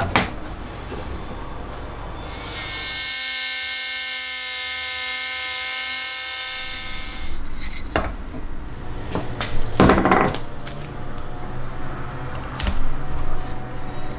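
An electric circular saw's motor and blade run at a steady pitched whine for about five seconds, starting about two and a half seconds in. Before and after it come clicks and knocks of the saw and wood being handled.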